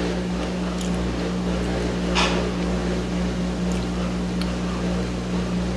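Steady low hum of a running washing machine and clothes dryer, with small clicks of chewing and a brief crunch about two seconds in.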